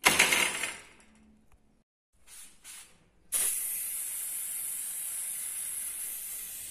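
Aerosol can of black spray paint hissing steadily as it coats a wire barbecue grill basket, starting about three seconds in. A short clatter comes at the very start.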